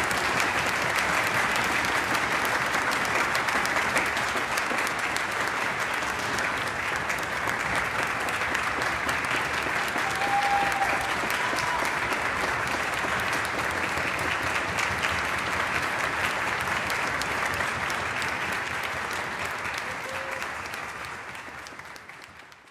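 Audience applauding steadily in a concert hall, the clapping fading out over the last few seconds.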